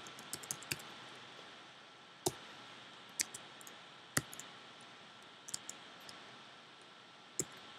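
Computer keyboard keystrokes: a quick run of key clicks at the start, then single sharp clicks about a second apart, over faint room hiss.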